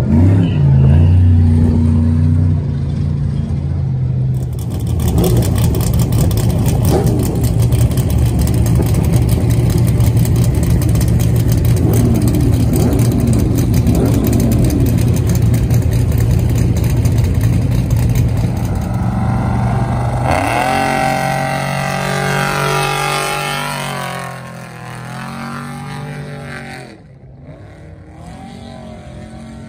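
Off-road race truck engines running loudly and steadily. About two-thirds of the way in, an engine revs up with a rising pitch, then the sound drops away.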